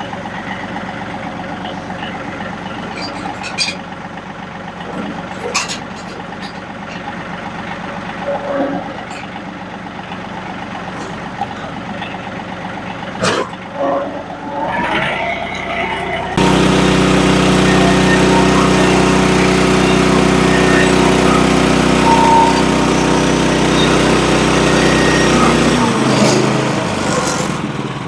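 Woodland Mills bandsaw sawmill's gas engine running at a low speed, with a few sharp knocks and clanks, then throttled up about two-thirds of the way through to run louder and steady, easing back a little near the end.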